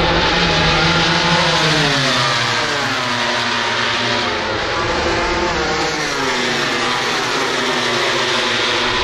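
Several racing motorcycles passing at high revs, their engine notes overlapping and continually rising and falling in pitch as the bikes go by and shift gear.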